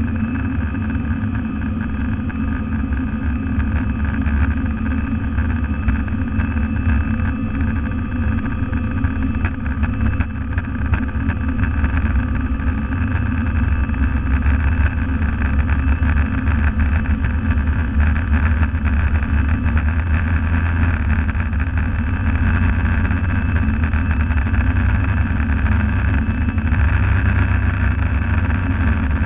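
Airbus A320's jet engines at high thrust heard from inside the cabin during the takeoff roll: a steady engine sound with constant whining tones over a heavy low rumble from the wheels on the runway, slowly growing louder as the aircraft gathers speed.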